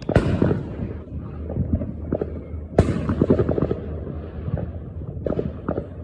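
Fireworks going off: a sharp bang at the start and another a little under three seconds later, each followed by a run of crackling pops.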